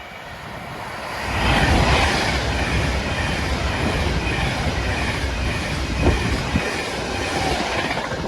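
Class 390 Pendolino electric train passing at speed: a rush of rumble and wheel noise that builds over the first second and a half, holds steady with a few faint wheel clicks, then starts to fade near the end.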